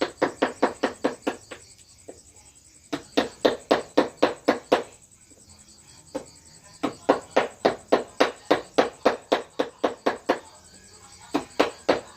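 Runs of quick, even tapping, about five strikes a second, in four bursts with short pauses between them: a mallet striking a wood-carving chisel.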